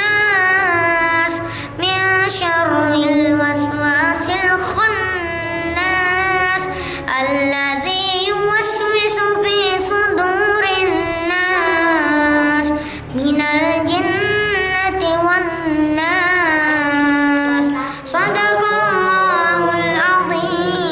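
A young boy reciting the Qur'an in a melodic, chanted style into a microphone: long held, ornamented phrases that rise and fall in pitch, separated by short breaths.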